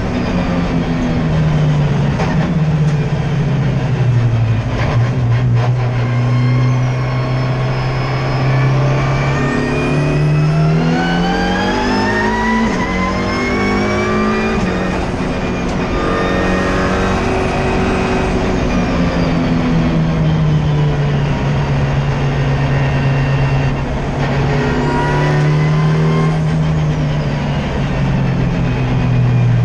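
Ford Fiesta EcoBoost race car engine heard from inside the cabin under track driving. It holds steady revs, then climbs in pitch for about five seconds under acceleration before the revs drop, and rises and falls once more near the end. A faint high whine follows the revs.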